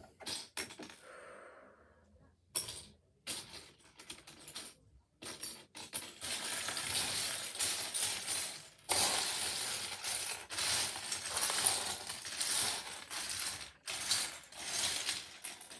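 Hands sifting through a pile of loose Lego pieces, with small plastic parts clattering against each other. At first there are a few separate clicks, then about six seconds in a continuous rattling starts and runs until near the end.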